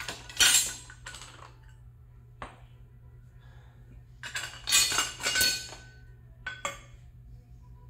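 Metal hand tools and parts clinking and clattering on a concrete floor as sockets and a gear puller are picked up and set down, in several separate bursts with a longer cluster near the middle. A steady low hum runs underneath.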